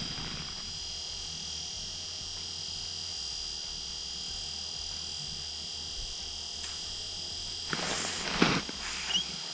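A steady high-pitched electronic whine of several constant tones with a low hum beneath it. About eight seconds in, a brief rustle and scuffle as the fishing rod is jerked up to set the hook on a fish.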